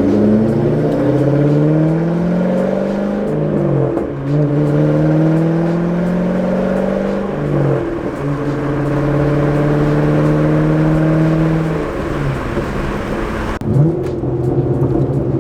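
C6 Corvette's V8 through a straight-piped muffler-delete exhaust, heard from inside the cabin while accelerating. The engine pitch climbs, breaks with upshifts about four and eight seconds in, holds steady at cruise, then drops near the end.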